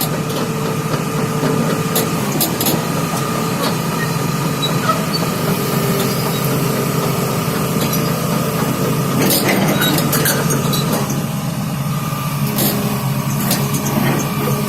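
Hitachi 330H hydraulic excavator's diesel engine running at a steady pitch, with a few sharp knocks about nine and twelve seconds in.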